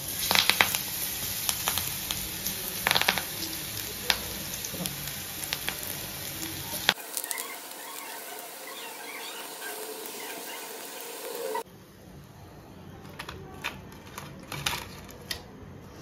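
Clumps of onion pakoda batter deep-frying in hot oil in a kadhai: a steady sizzle with many sharp pops and crackles. The sound changes abruptly about seven seconds in and again near twelve seconds.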